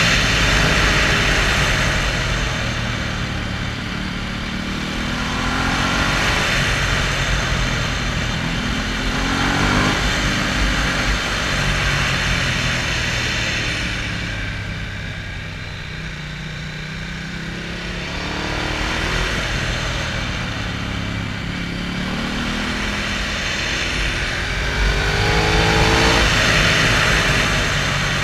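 Motorcycle engine pulling up through the revs and easing off again, over and over, as the bike is ridden through a string of bends. Steady wind rush on the helmet-mounted microphone runs under it.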